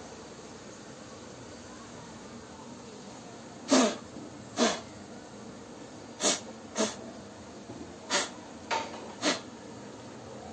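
About seven short, sharp puffs of breath-like air noise, irregularly spaced and starting about a third of the way in, over a steady low background.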